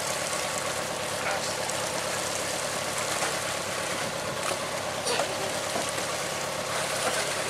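Sea water splashing and sloshing around a swimmer and a tuna at the side of a wooden fishing raft, over the steady hum of a running boat engine.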